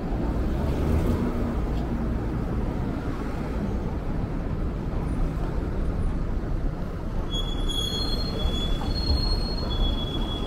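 Steady low rumble of city street traffic, with thin high-pitched squeals setting in about seven seconds in.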